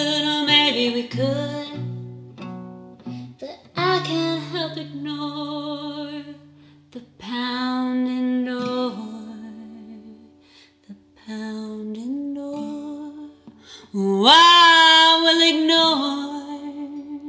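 A singer with acoustic guitar finishing an original song: a few long sung phrases over plucked guitar chords, the last note swooping up about fourteen seconds in and held with vibrato before fading out.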